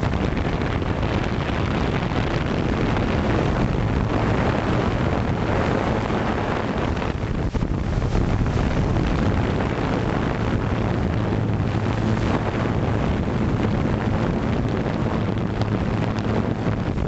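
Wind rushing over the microphone of a quadcopter's onboard camera in flight, with a steady low hum from its motors and propellers underneath.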